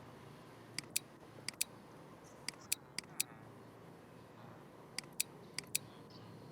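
About a dozen short, sharp clicks at irregular intervals, some in quick pairs, over a faint steady low hum.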